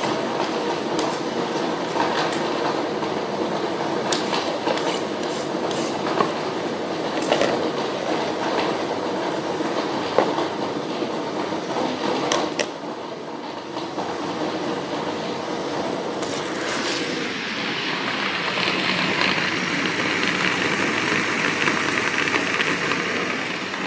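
An electric blender runs steadily, puréeing fresh tomatoes, with a few sharp clicks and knocks over it in the first half. A little past halfway the blender's noise turns brighter and more hissing.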